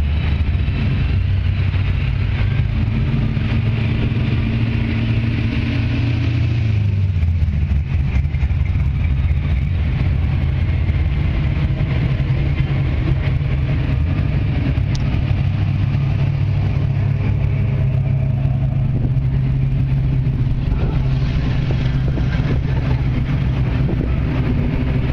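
Classic cars and police motorcycles driving past slowly one after another in a cruise procession, their engines running with a loud, steady low rumble; the engine note changes about seven seconds in as one vehicle gives way to the next.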